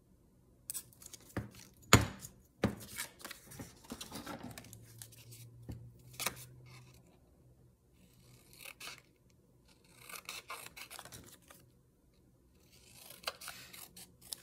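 Small craft scissors snipping printed paper, with paper rustling between cuts. A single sharp knock about two seconds in is the loudest sound.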